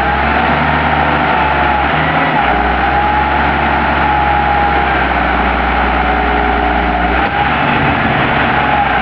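Toyota forklift's engine running steadily under load with a whine that wavers in pitch, as it powers the box rotator slowly tipping a full 3-tonne onion box.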